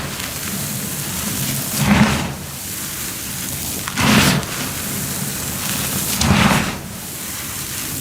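Close-miked crunching of cornstarch, with a louder crunch about every two seconds over a steady crackling hiss.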